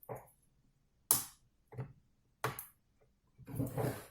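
A few short, sharp clicks and taps of small plastic parts being handled as a ribbon-cable connector is seated on a laptop motherboard, the loudest about a second in.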